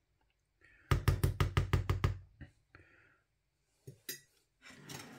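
A metal spoon is tapped rapidly against the edge of a foil food tray, about ten quick sharp knocks in just over a second. Near the end come a couple of light clicks as the spoon is set down in a ceramic dish.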